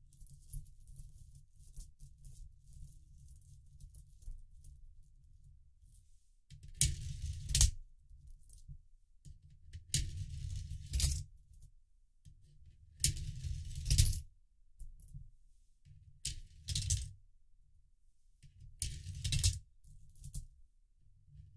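Coins fed one at a time into a 3D-printed plastic coin sorter: each run lasts about a second and ends in a sharp clink as the coin lands, about six of them a few seconds apart. Before the first, a quiet stretch of coins being shuffled by hand on a towel.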